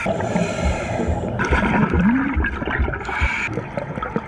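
Scuba regulator breathing underwater, picked up by the diver's own underwater camera: exhaled air gurgling out as bubbles, with a stronger burst of bubbling about a second and a half in.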